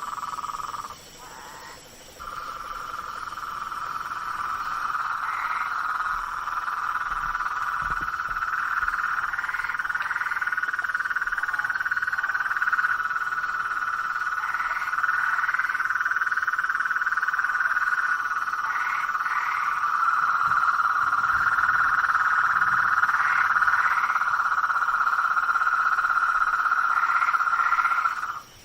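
A dense, unbroken chorus of frogs calling, with short paired higher calls standing out every few seconds. The chorus drops away briefly about a second in.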